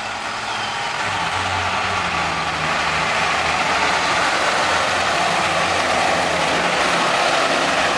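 Nova Quintek aerial ladder fire truck driving past close by. Its engine runs steadily beneath a rushing road noise that builds as the truck draws level, loudest around five to six seconds in.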